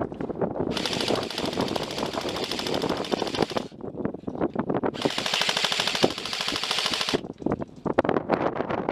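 Airsoft electric gun firing on full auto in two long bursts, about three seconds and then two seconds, a rapid buzzing rattle of the motor-driven gearbox cycling.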